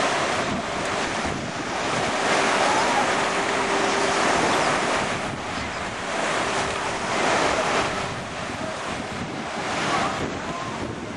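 Wave pool surf: machine-made waves breaking in foam and washing along the pool edge, a continuous rush of water that swells and eases every few seconds.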